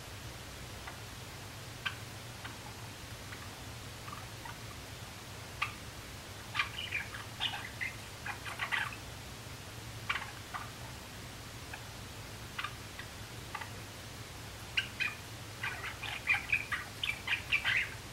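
Young male Java sparrow practising its song: scattered short clicks and chirps, running together into quicker strings of notes around the middle and again near the end. A steady low hum lies underneath.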